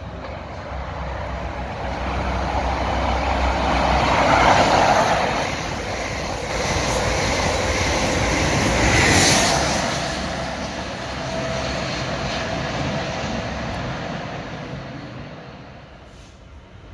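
Intercity 125 High Speed Train, its Class 43 diesel power cars and coaches passing through at speed. A loud rush of engine and wheel noise swells to a peak about four seconds in and again at about nine seconds, then fades away.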